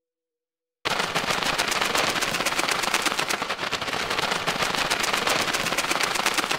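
Logo-reveal sound effect: a dense, loud crackling of rapid fine clicks that starts suddenly about a second in and holds steady.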